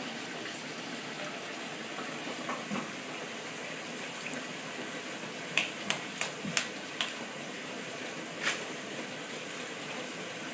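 A few sharp clicking taps about halfway in, around six over three seconds, from a knife working an eel on a wooden chopping board. A steady hiss runs underneath.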